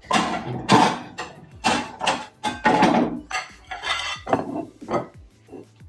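A serving spoon knocking and scraping against a pot and a plate as food is dished up: about ten irregular clatters and short scrapes.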